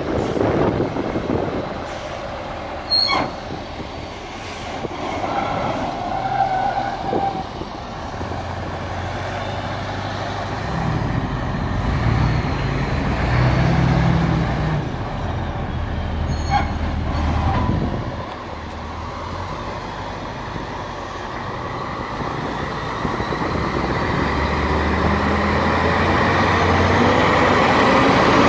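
Terex AC 1000-9 all-terrain crane driving, its diesel engine running with the rumble swelling and easing, then growing louder with a rising tone over the last several seconds. Two short sharp clicks sound, a few seconds in and about halfway through.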